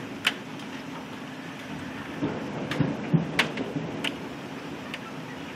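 Heavy rain and hail falling in a steady hiss, with sharp, irregular ticks of hailstones striking a hard surface close by; the loudest ticks come a little over three seconds in. A low rumble swells near the middle.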